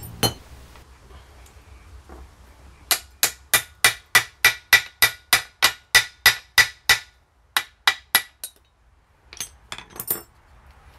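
Hammer striking steel in a fast run of about four blows a second, with a metallic ring, then a few spaced strikes and a short last flurry. This is a steel Welch plug being driven into the top of a Citroën 2CV axle arm's kingpin housing through a socket used as a drift, which flattens the plug to seal the housing.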